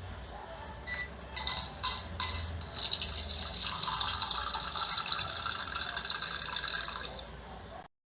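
A few light clicks, then liquid pouring steadily for about four seconds, stopping abruptly.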